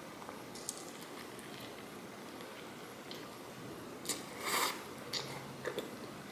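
Biting into and chewing a seaweed-wrapped rice-paper spring roll filled with instant noodles: a few small wet mouth clicks, with a short louder burst of eating noise about four seconds in, over a faint steady hiss.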